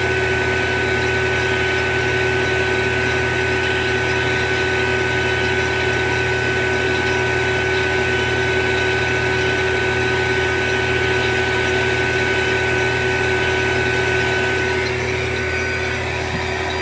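Fieldpiece vacuum pump running steadily, evacuating a small refrigeration system as the micron reading falls. A constant hum carries a steady whine, which fades slightly near the end.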